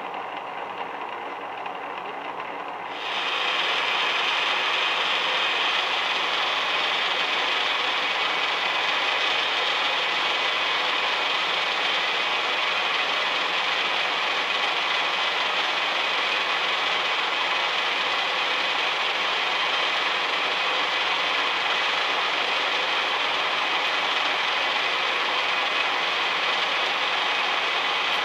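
Milling machine running steadily, a dense mechanical clatter with a faint steady hum; about three seconds in it grows louder and brighter and then holds steady.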